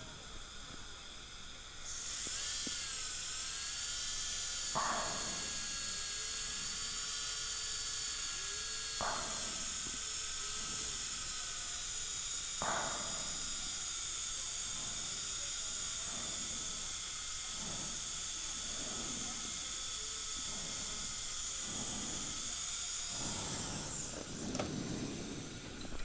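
High-speed dental drill whining steadily, starting about two seconds in and stopping near the end.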